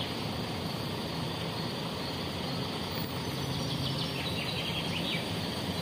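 Diesel engine of a MAN coach bus idling at a standstill: a steady low running hum under outdoor street noise.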